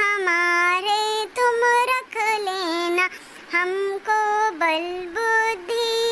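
A high voice singing a Hindi children's prayer rhyme without accompaniment, in short phrases of held and gliding notes with brief breaths between them.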